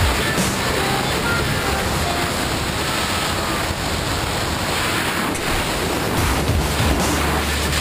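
Loud, steady wind rush buffeting the microphone of a wrist-mounted camera in tandem skydive freefall.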